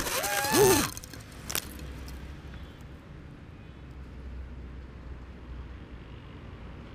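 FPV quadcopter crashing into a tree: a loud burst of crashing noise and motor whine, the whine's pitch swooping down and cutting out about a second in, followed by a single click. After that only a faint, steady low rumble remains.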